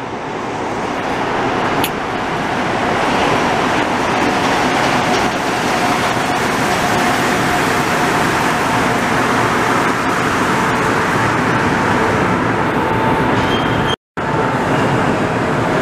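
MR-73 rubber-tyred metro train pulling into the station: a steady rumble that builds over the first few seconds, with a faint steady whine joining it partway through. The sound cuts out for a split second near the end.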